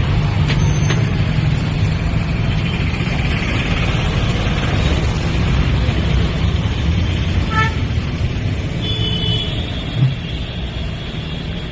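Road traffic noise: a steady low rumble of vehicle engines, with a couple of short high tones in the last few seconds.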